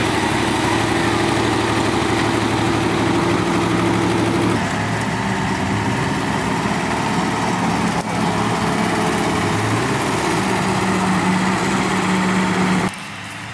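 Off-road vehicle engines idling steadily, the engine note changing a couple of times; the sound drops away suddenly near the end.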